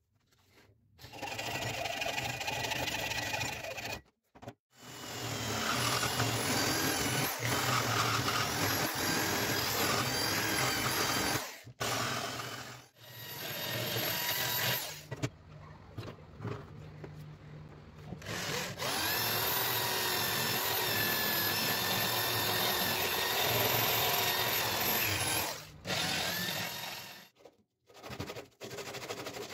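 Handheld rotary tool with an abrasive stone bit grinding a wooden knife handle, a high whine that wavers in pitch. It comes in several stretches, broken by short gaps.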